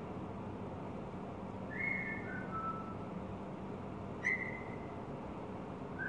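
Caged bulbul singing short whistled phrases: a three-note phrase stepping down in pitch about two seconds in, then a single clear whistled note with a sharp click at its start a couple of seconds later. A steady low hum runs underneath.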